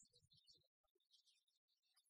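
Near silence: only faint, scattered background noise.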